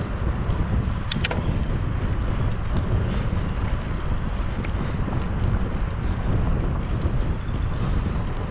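Wind buffeting the microphone of a bicycle-mounted camera while riding, a steady low rumble without let-up. A couple of quick sharp clicks about a second in.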